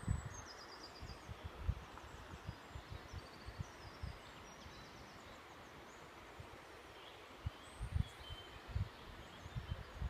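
Outdoor woodland ambience: small birds chirping and trilling in short high phrases over a steady hiss, with irregular low thumps that are the loudest sounds.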